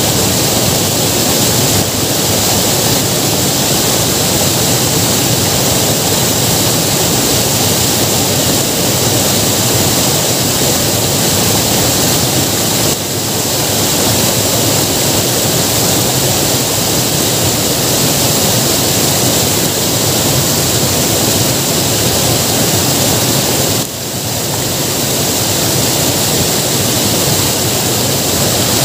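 Water rushing steadily over the spillway of a full lake as it overflows. The sound is a loud, even rush that dips briefly twice, just before halfway and again near the end.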